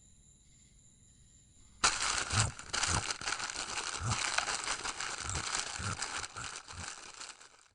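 Crinkling, rustling noise with soft low thumps, starting suddenly about two seconds in and fading out near the end.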